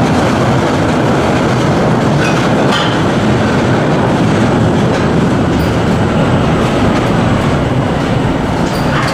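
Mine tour train running through a narrow rock tunnel: a steady, loud rolling noise of wheels on rails, with a few short, sharp, higher sounds about two seconds in and again near the end.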